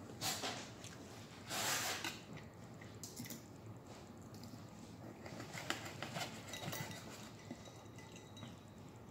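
Close-miked eating sounds, faint overall: two short wet chewing or mouth sounds in the first two seconds, then a knife and fork cutting a fried pork chop on a plate, with light scrapes and small clicks.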